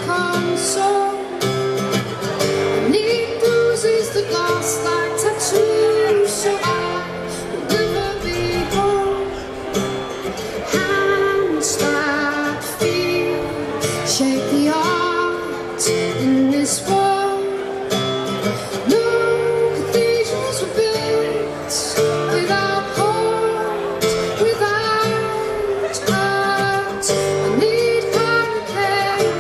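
A woman singing a song live over a strummed acoustic guitar.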